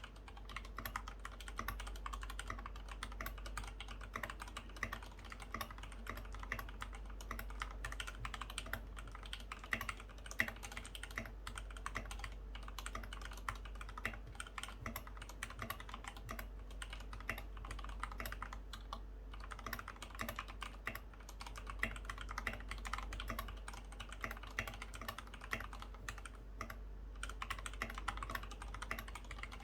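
Continuous fast typing on a GK68X mechanical keyboard with lubed Gateron White switches, foam dampening and SA profile keycaps: a dense stream of keystroke clacks with a few brief pauses, under a low steady hum.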